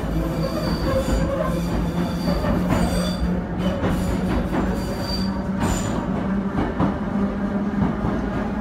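Class 483 electric train (ex-London Underground 1938 tube stock) running, heard from inside the carriage: a steady low motor hum over continuous wheel-on-rail rumble, with thin high tones coming and going.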